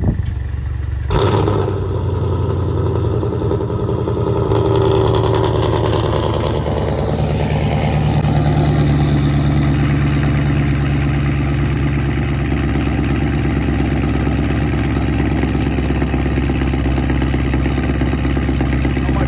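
Chevrolet Camaro cold start. The engine fires with a sudden burst about a second in, runs high and busy for several seconds, then settles into a steady fast idle.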